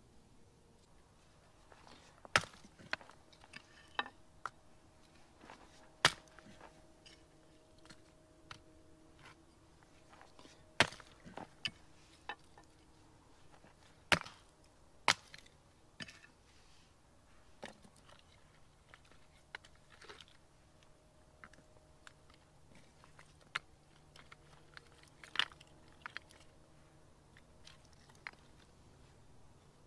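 Dead wood being worked by hand: irregular sharp knocks and cracks, a dozen and more, spaced a second or more apart.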